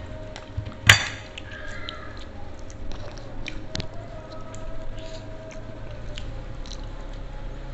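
Metal spoon clinking against a ceramic bowl: one sharp clink about a second in, then lighter scattered taps and scrapes while eating, over a faint steady hum.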